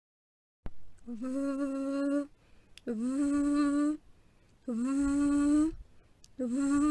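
A voice holding a single letter sound four times, each about a second long, with a short upward scoop in pitch at the start of each.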